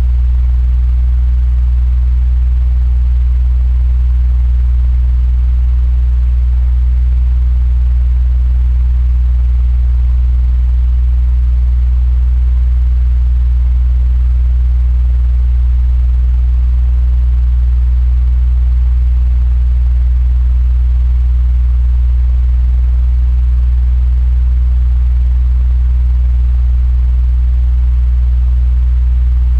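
Electric fan running steadily: a deep, even hum with a faint airy hiss above it, unchanging throughout.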